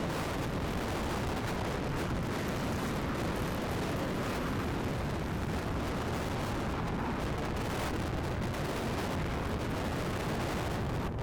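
Strong wind buffeting the microphone: a loud, steady rush of noise with a heavy low rumble and no let-up.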